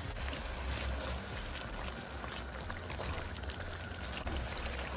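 A pot of chicken stew boiling: a steady bubbling hiss with faint scattered pops.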